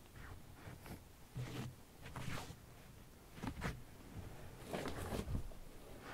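A cat getting up and padding away across carpet close to the microphone: soft, irregular rustles and pad sounds, a few louder ones around two and five seconds in.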